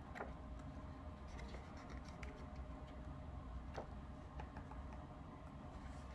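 Paper pages of a large hardcover picture book being handled and turned: scattered soft rustles and small ticks over a low steady hum.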